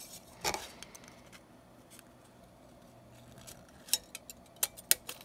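Thin aluminium beer-can sheet and scissors being handled: a brief crinkle about half a second in, then a few light, sharp metallic clicks in the second half.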